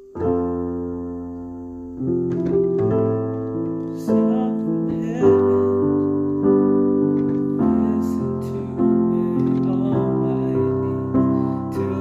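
Solo piano playing a slow, quiet passage of sustained chords, a new chord struck about every second or so and left ringing as it fades.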